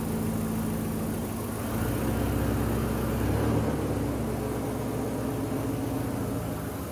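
Turbocharged Datsun 720 pickup's engine running at idle just after starting, getting a little louder for a second or so about two seconds in, then settling.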